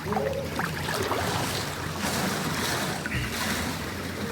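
Wind rushing over the microphone with outdoor water ambience, a steady rushing noise without speech.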